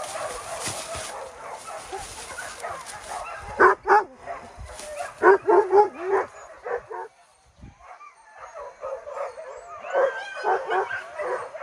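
Hunting dogs yelping and barking in bursts of high yips, with a short lull about midway: a pack giving tongue on a wild boar chase.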